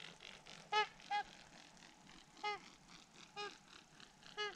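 Swans calling as they fly overhead: about five short calls, spaced irregularly about a second apart.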